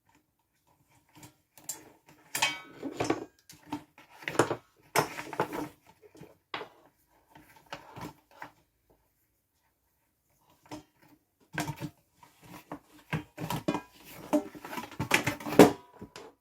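Parts of a plastic pet water fountain being handled and fitted together, with irregular knocks, clicks and clatter in two bursts and a silent pause between them.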